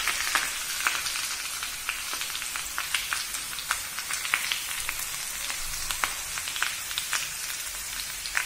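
Julienned potatoes frying in a pan with pork fat and oil, sizzling: a steady hiss full of many small crackles and pops.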